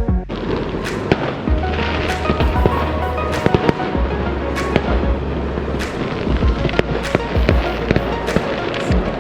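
Fireworks going off in quick succession, many sharp bangs and pops, with music playing underneath.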